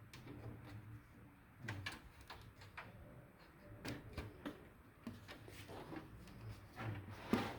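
Plastic front bezel of a Dell OptiPlex desktop case being worked off its clips: scattered light clicks and taps, with a louder knock near the end.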